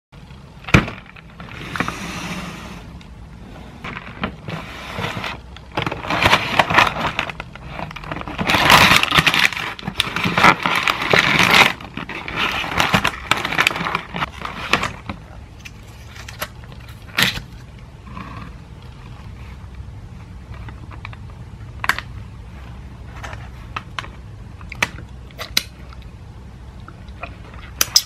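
Paper wrapping of a fried chicken box rustling and crinkling as it is opened and handled, strongest in the middle. There is a knock about a second in as a cup is set on the table, and the sound thins out near the end to scattered small clicks and taps.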